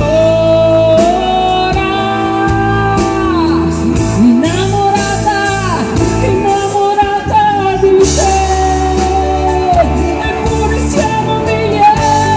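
Live pop-rock band music with a female lead singer holding long notes that slide up and down in pitch, over drums, electric guitars and keyboard.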